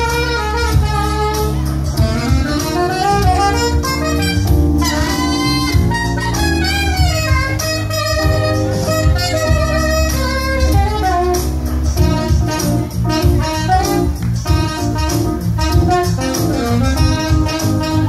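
Saxophone playing a smooth-jazz melody with bends and a quick rising run about four and a half seconds in, over an accompaniment of bass and a steady beat.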